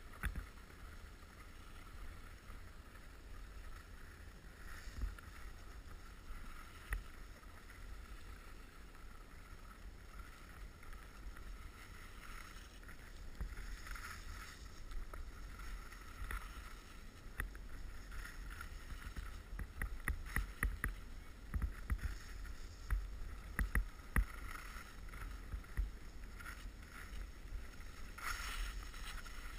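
Wind rumbling on a pole-held camera's microphone and skis sliding over snow during a downhill run, with scattered short knocks that come more often in the second half.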